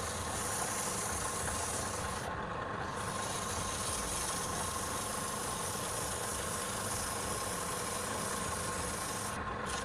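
Woodturning lathe running steadily with a constant whine and a high hiss; the hiss drops out briefly twice.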